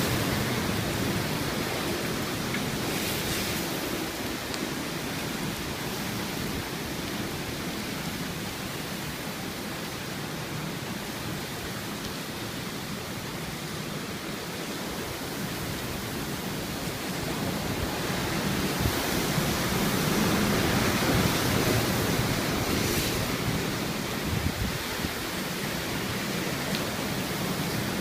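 Strong typhoon wind and driving rain, a steady rushing noise that swells into stronger gusts about two-thirds of the way through.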